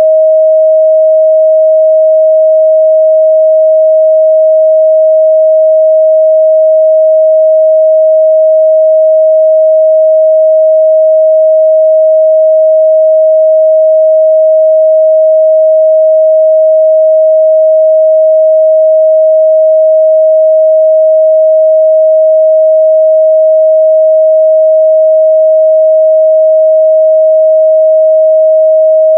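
Pure 631 Hz sine-wave test tone, held steady and loud with no change in pitch or level.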